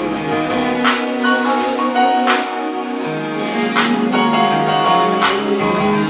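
Live band playing an instrumental passage: held chords over a moving bass line, with a drum kit striking about every second and a half.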